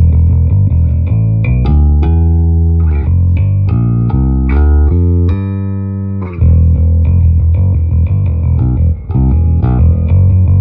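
Electric bass guitar noodling freely through a Peavey VB-2 all-tube bass amp head, a run of plucked notes with one note held for about a second midway. It starts suddenly and plays loud throughout.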